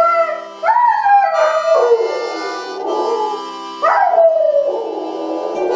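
German Shepherd howling: several long howls, each sliding down in pitch after a rise, with music held on steady chords underneath.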